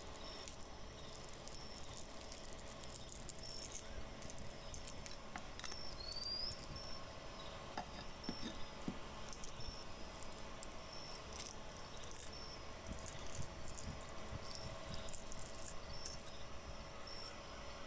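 Faint cracking and rubbing of a rotten wooden sickle handle being pulled apart and off its rusty tang by gloved hands, a few scattered small cracks. Behind it a cricket chirps, a short high chirp about once a second, over a steady low hum.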